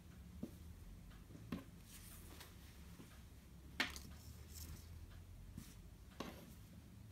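Faint rustling of a striped cotton girls' top being smoothed out and lifted by hand, with a few soft clicks and taps, the sharpest about four seconds in.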